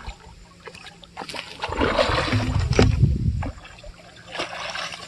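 Water splashing and sloshing as a hooked fish is pulled in, loudest for a second or two in the middle, with scattered sharp clicks.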